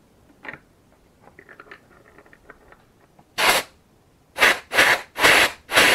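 Compressed air blown in short blasts into a restored brake caliper to test that its pistons move: five short hissing bursts starting about three seconds in, after a few faint clicks of the parts being handled.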